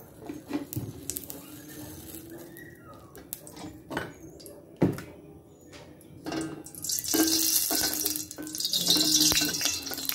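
Cooking oil sizzling in a hot wok, the hiss starting about six seconds in and holding to the end. Before it come a few sharp clicks and knocks of kitchen utensils, the loudest a single knock about five seconds in.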